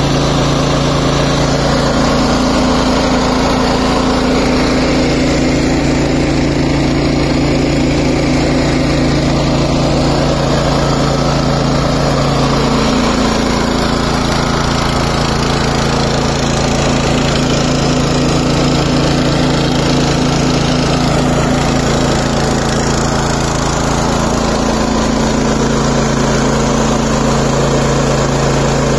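A PE100 portable scuba air compressor running steadily on its small petrol engine, the engine's running mixed with the compressor's pumping.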